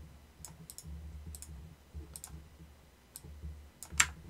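Scattered clicks from a computer mouse and keyboard, about eight in all, the sharpest near the end, over a low steady hum.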